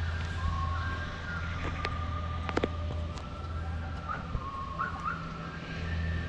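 A slow melody of long, high held notes stepping from one pitch to another, over a steady low hum, with a few short clicks in the middle.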